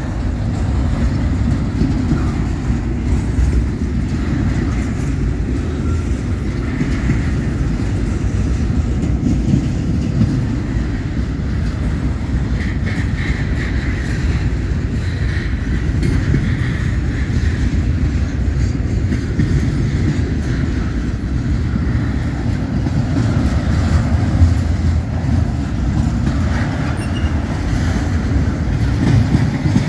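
Double-stack intermodal freight train rolling past close by: a steady rumble of steel wheels on the rails, with some clickety-clack over the rail joints.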